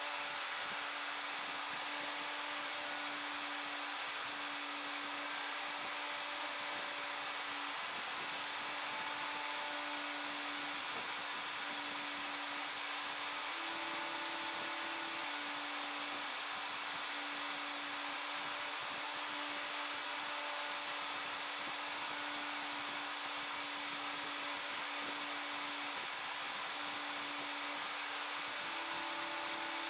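CNC router engraving a copper-clad PCB with a fine 20-degree V-bit: the spindle runs with a steady high whine over a noisy hiss. Under it is a low hum that steps between two pitches every second or two as the axes move.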